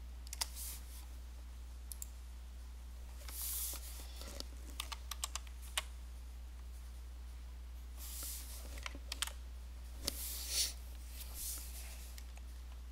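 Computer keyboard typing: scattered keystrokes and short runs of keys, over a steady low hum.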